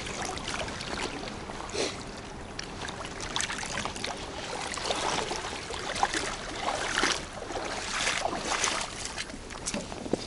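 River water trickling and sloshing against an inflatable boat, broken by irregular splashes, rustles and knocks as a freshly caught fish is handled.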